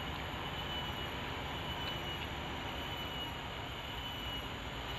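Steady outdoor background noise: a low rumble and an even hiss, with a faint, thin high-pitched tone held through most of it.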